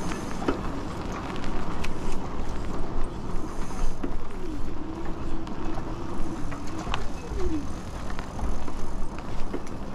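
Riding noise from an e-bike rolling along a wet paved trail: steady wind and tyre noise with scattered light ticks and rattles, and a faint wavering whine through the middle.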